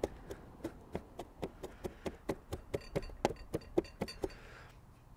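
Chef's knife mincing garlic on a plastic cutting board: a quick, even run of knocks as the blade strikes the board, about five a second, stopping about four seconds in.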